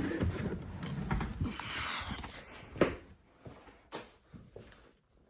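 Scuffing and clunking from a car in neutral being pushed by hand so it rolls, with a hissing rustle about two seconds in and a sharp knock shortly after.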